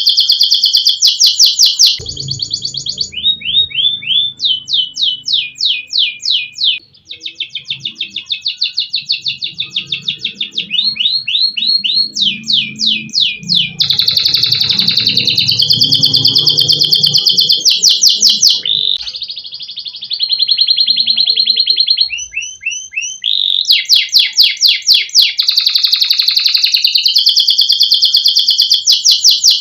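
Adult F2 canary singing without a break: one trill of rapid repeated notes after another, each lasting a second or two before switching to a new pitch and speed.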